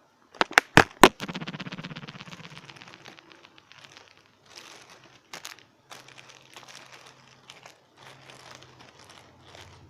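Plastic crinkling and rustling as items are handled. A few sharp clicks come about half a second to a second in, followed by a quick run of clicks that fades over about two seconds.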